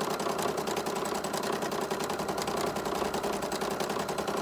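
Sewing machine running steadily during freehand (free-motion) stitching, the needle going up and down in a rapid, even rhythm.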